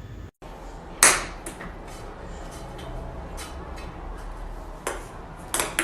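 A sharp knock about a second in, then scattered lighter clicks and taps, and a quick run of knocks near the end, like a hard object striking a surface.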